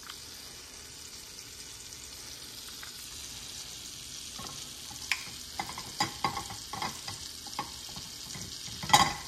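Butter sizzling steadily in a hot uncoated stainless steel frying pan, with scattered crackles and pops growing from about halfway through. A single loud, sharp knock comes just before the end.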